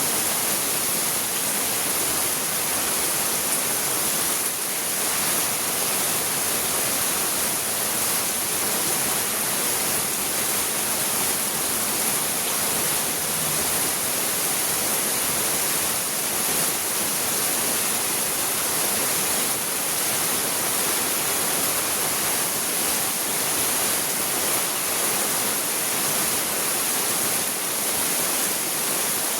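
Heavy rain from a passing storm falling steadily, a constant dense hiss with no letup.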